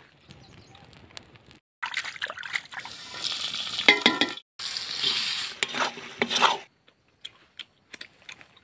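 Green and red chillies frying in hot oil in an iron wok: sizzling, with a metal ladle stirring and scraping against the pan. A few light clicks near the end.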